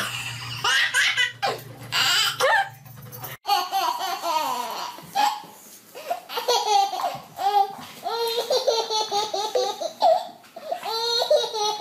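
Babies laughing in repeated strings of belly laughs: one baby's laughter breaks off suddenly about three and a half seconds in, and a second baby's laughter takes over.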